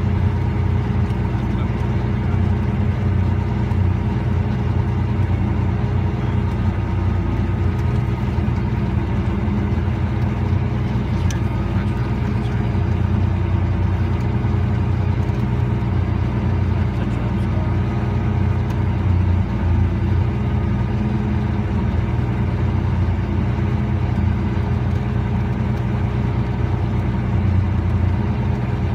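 A tractor engine runs steadily under load, pulling a tile plow that lays drain tile. The low engine drone holds an even pitch and level.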